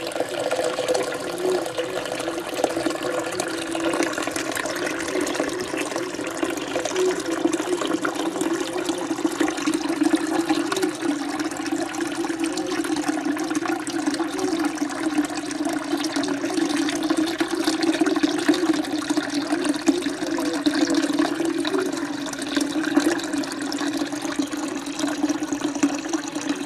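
Kitchen tap running in a steady stream into a ceramic slow-cooker crock, filling it with water over soaking grains.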